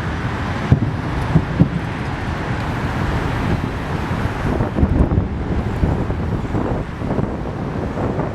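Fireworks shells bursting as repeated low, dull thuds over a steady rumble, with wind buffeting the microphone.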